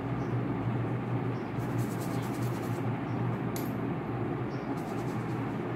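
Steady low hum and hiss of background noise, with a few faint soft scratches of a paintbrush working on paper.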